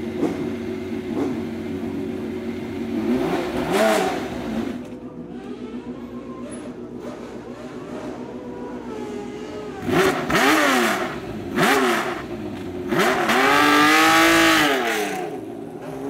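Classic Formula 1 car engine idling, blipped about 4 s in, then settling to a lower idle. Two sharp throttle blips follow about 10 and 11.5 s in, then a longer held rev from about 13 to 15 s.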